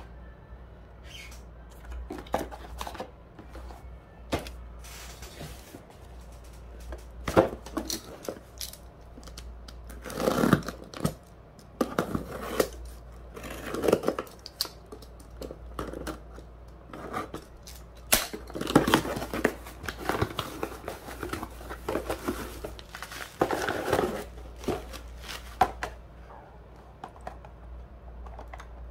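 Hands unboxing packaging: a taped cardboard parcel is cut with a utility knife and torn open, with cardboard and plastic packaging rustling and crinkling in irregular bursts.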